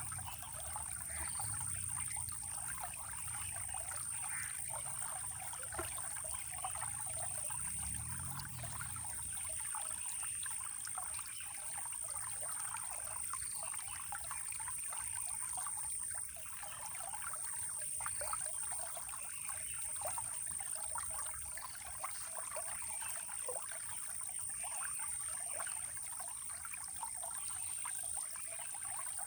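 Running water trickling and splashing steadily in a small stream, with a continuous high thin whine above it.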